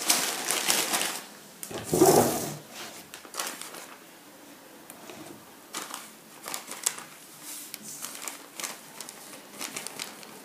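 Paper rustling and crinkling as a folded paper cone is shaken and tapped to pour flour into a plastic bottle, with scattered light taps and a louder rustle about two seconds in.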